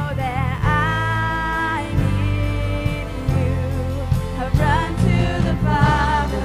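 A woman singing a worship song with live band accompaniment, bass and drums under her voice. She holds long notes, some of them wavering.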